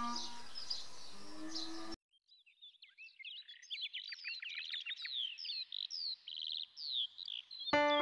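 A small songbird singing a rapid run of high, quickly falling whistles and trills for about five seconds. Background music plays for the first two seconds, then cuts off, and starts again near the end.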